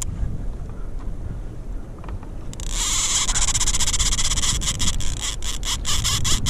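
Fishing reel clicking rapidly from about three seconds in as line is pulled off against the drag: a large hooked bat ray making a run. Before that there is only a low rumble.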